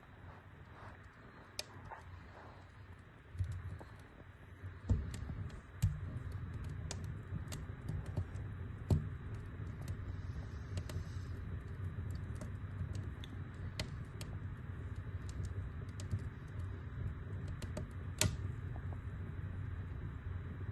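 Wood fire burning in a fireplace: irregular crackles and sharp pops from the burning logs over a steady low rumble of the flames, with a few louder pops.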